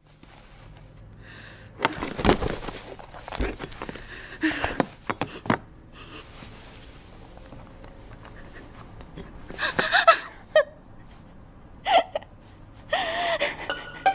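Sound effects of an animated cartoon. A run of sharp knocks and thuds comes in the first few seconds, then short gasping, hiccup-like vocal sounds from a character follow in three bursts in the second half.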